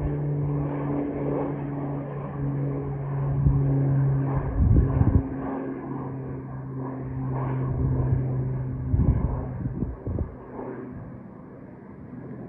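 Airplane climbing away after takeoff: a steady low engine drone that drops slightly in pitch about four and a half seconds in and fades toward the end, with a few gusts of wind on the microphone.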